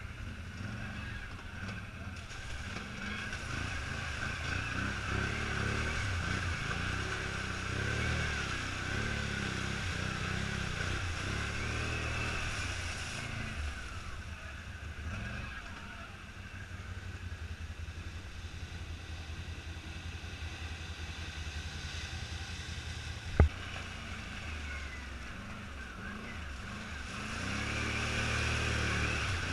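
ATV engine running on a trail ride, its pitch rising and falling with the throttle and easing off for a stretch in the middle. A single sharp knock about 23 seconds in, and the engine picks up again near the end.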